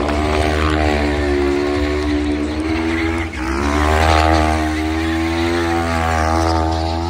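Quad bike engine held at high revs while drifting. The revs dip briefly about three seconds in, then climb back up.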